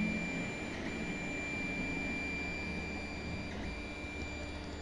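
Creality Ender 3D printer running early in a print, giving a steady high-pitched whine over a low hum; the whine breaks off briefly twice as the motion changes.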